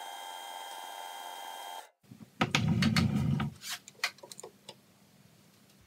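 Boxford metal lathe running steadily with a whine made of several even tones, cut off abruptly about two seconds in. Then rubbing and a string of sharp clicks as a digital caliper is handled and closed on the workpiece.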